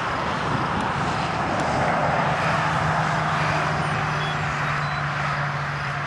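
Steady rushing noise of a distant moving vehicle, with a low droning hum that sets in about two seconds in and holds.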